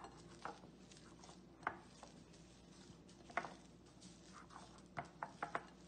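Hands kneading a shaggy flour-and-oatmeal dough in a ceramic bowl: faint, scattered soft taps and squishes of dough and fingers against the bowl, several in quick succession near the end, over a faint steady hum.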